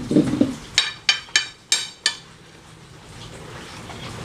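Metal spoon knocking and clinking against a ceramic plate while food is served: a couple of dull knocks, then about five sharp clinks within the first two seconds, followed by quieter handling.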